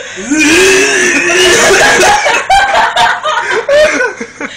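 Loud laughing: one long laugh, then several short ones.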